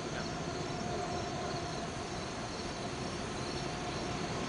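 Insects calling in a steady run of short, high-pitched pulses over a constant low background rumble.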